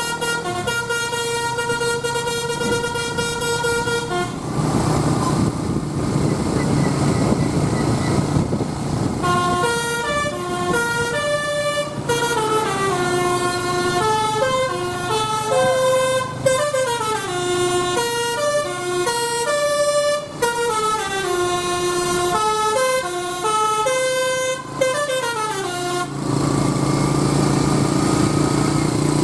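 A bus's basuri telolet horn, a multi-tone musical air horn: it holds one note at the start, then from about ten seconds in plays a melody of quick stepped notes rising and falling for about sixteen seconds. Between the horn passages and near the end, the bus's engine running is heard.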